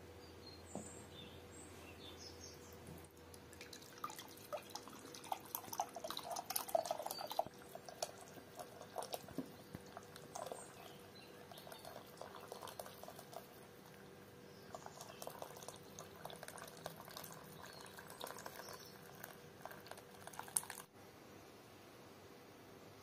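Lamb broth being poured from an aluminium pot into a glazed clay crock, splashing and trickling in two spells, with scattered light clicks and a single sharp knock near the end.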